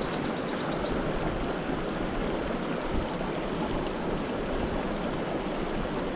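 Small rocky creek running over stones: a steady rush of flowing water.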